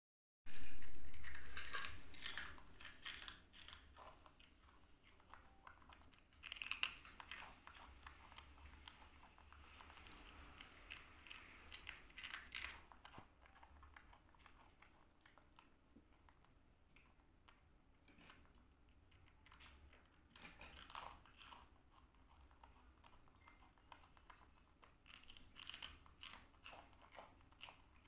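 Baby macaque biting and chewing crispy rice cakes: several bursts of crisp crunching, with quieter pauses between mouthfuls.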